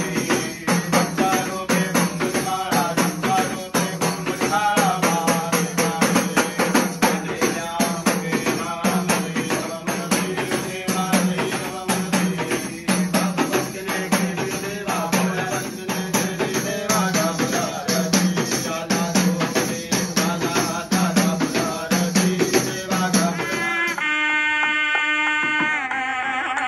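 Arati music: bells and jingling percussion clattering over a steady drumbeat, a little over one beat a second. Near the end it gives way to sustained synthesized music.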